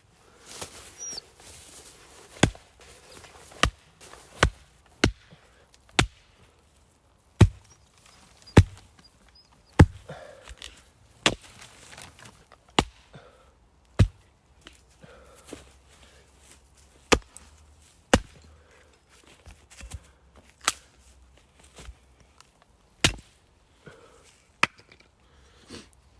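Firewood being chopped: a long series of sharp, single blows into wood, about one a second with uneven spacing.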